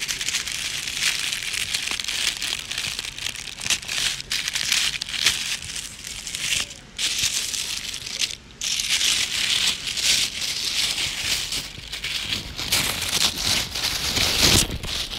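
Black tissue paper crinkling and rustling as it is unwrapped by hand, in a dense, irregular stream of crackles that drops out briefly about seven and eight and a half seconds in.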